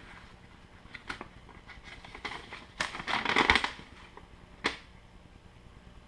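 Paper instruction sheet rustling and crackling as it is unfolded and handled, in a few short bursts, the longest about three seconds in, with one sharp crack of paper a little before the five-second mark.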